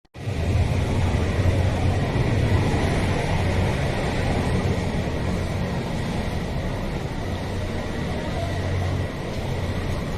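Loud, steady vehicle rumble with a faint high whine throughout, starting abruptly.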